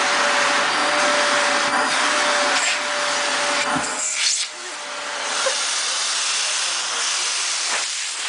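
Vacuum cleaner running with a steady hiss and hum; about four and a half seconds in its sound briefly drops and changes tone, then carries on.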